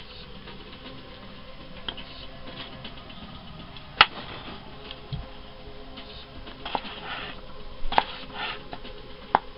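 Kitchen knife slicing through red potatoes and knocking on the cutting board: scattered sharp clicks at an unhurried, irregular pace, the loudest about four seconds in.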